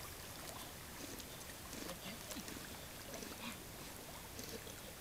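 Quiet paddling and water lapping from a curly-coated retriever swimming with a retrieving dummy in its mouth, faint with soft scattered splashes.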